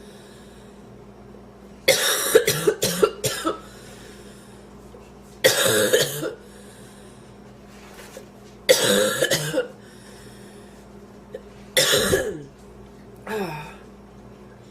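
A woman in a hard coughing fit, coughing in bouts: a rapid run of coughs about two seconds in, then single bursts roughly every three seconds, the last one weaker. She is trying to cough up bits of sandwich she inhaled into her airway.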